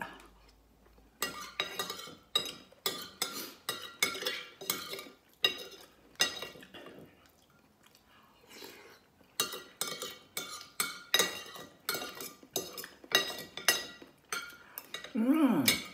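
Metal spoon and fork clinking and scraping against a ceramic plate during a meal, an irregular run of short clicks, with chewing between.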